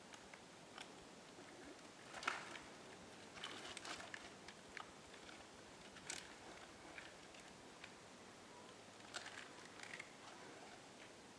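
Faint, scattered crunches and scrapes of a black bear biting and tearing at a beaver carcass hanging in a tree while its claws grip the bark; the sharpest crack comes a little over two seconds in.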